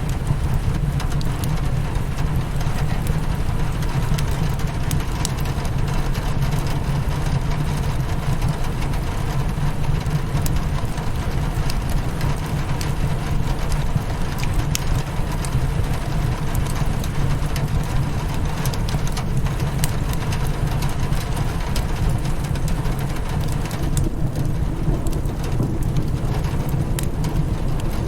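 Rain on a windowpane mixed with a crackling fireplace: a steady rain hiss over a heavy low rumble, with scattered sharp crackles and pops throughout.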